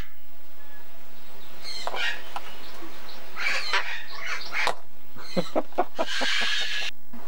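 Sulphur-crested cockatoo calling: short squawks and chattering calls, a quick run of short clicking notes about five a second, then a loud harsh screech near the end.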